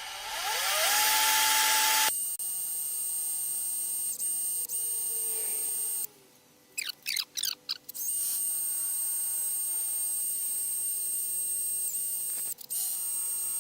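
Small high-speed rotary power tool cutting a groove in a brittle fishing-rod tip part: it spins up with a rising whine and grinds loudly for about two seconds, then runs on with a steady high whine. It stops for a couple of seconds in the middle and starts again.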